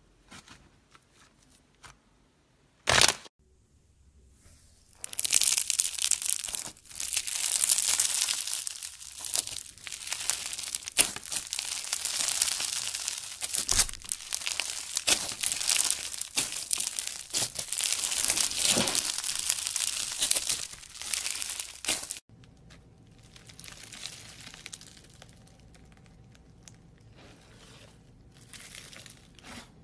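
Slime being squeezed, stretched and pulled apart by hand, making a dense crackling and tearing sound, with one sharp pop about three seconds in; the crackling stops abruptly near the two-thirds mark and gives way to fainter, sparser crackles.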